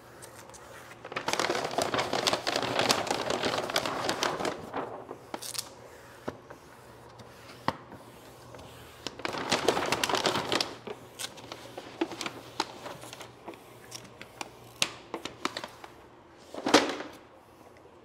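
3M air-release vinyl wrap film being worked onto a fridge panel by squeegee and hand, its backing liner pulled down. This gives two spells of crinkling and scraping, about a second in and again around nine seconds in, with scattered small clicks between.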